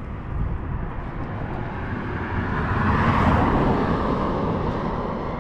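A car passing on the road alongside, its noise swelling to the loudest point about three seconds in and then fading.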